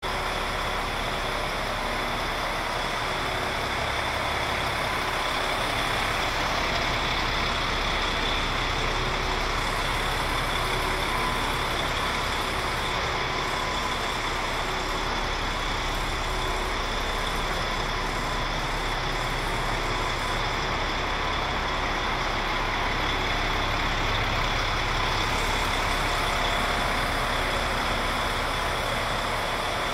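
DAF XF105's Paccar MX 460 six-cylinder diesel engine idling steadily, heard from outside the truck.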